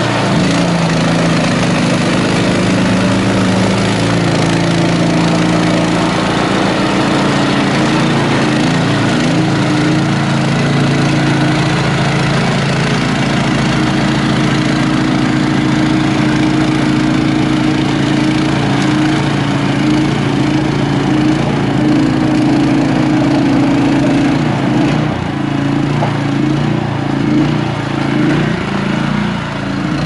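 Honda HSS1332ATD two-stage snowblower running steadily under load, its single-cylinder engine driving the auger and impeller as they clear and throw wet snow. The engine note wavers and drops a little near the end.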